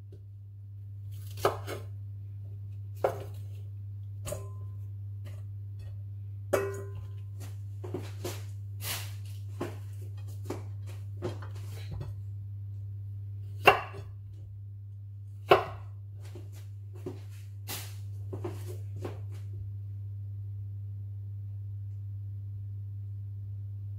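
Kitchen knife chopping green pepper and courgette on a wooden chopping board: irregular sharp knocks of the blade on the board, a few much louder than the rest, pausing near the end. A steady low hum runs underneath.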